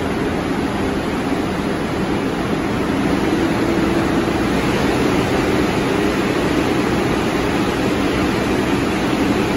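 R62A subway train standing at the platform with its doors open, idling with a steady rushing noise and a low hum.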